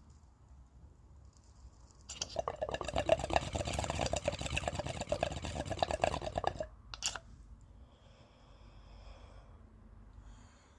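Water bubbling rapidly in a bong as smoke is drawn through it, starting about two seconds in and stopping abruptly after about four and a half seconds, followed by a brief click.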